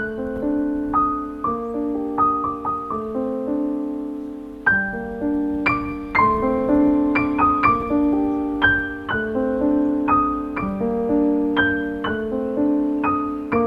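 Background piano music: a slow, gentle melody over held chords, the notes struck and left to ring.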